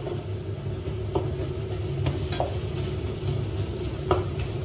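Food sizzling as it fries in a pan, stirred with a wooden spatula that knocks lightly against the pan a few times.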